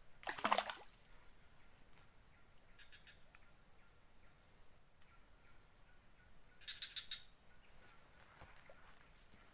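Steady high-pitched drone of insects buzzing, with a short sharp noise about half a second in and a couple of faint brief chirps later on.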